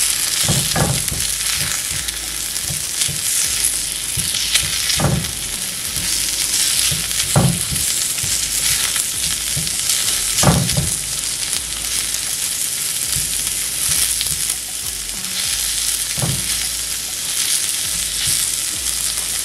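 Sliced sausage and diced green peppers sizzling steadily in a hot cast iron skillet while being stirred with a silicone spatula, with a few short knocks as the spatula moves them around the pan.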